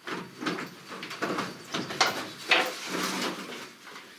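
A run of irregular knocks, clanks and scrapes, about a dozen of them, uneven in spacing and loudness.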